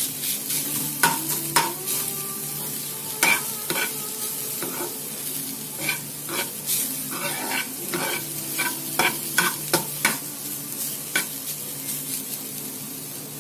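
Grated beetroot sizzling as it fries in ghee in a non-stick pan, stirred with a spatula that scrapes and knocks against the pan in frequent short clicks.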